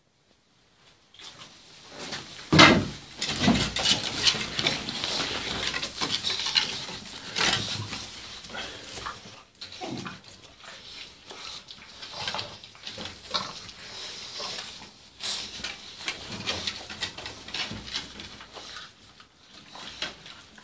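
A litter of puppies scuffling, snuffling and grunting as they jostle in straw, with a sharp knock about two and a half seconds in.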